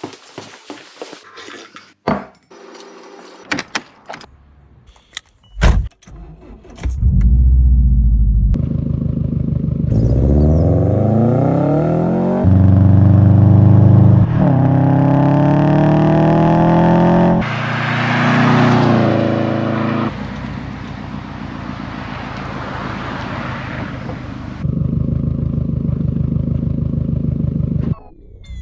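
Subaru Forester STI's EJ25 flat-four engine starting after a few clicks and knocks. It is revved twice with rising pitch, then settles to a steady idle.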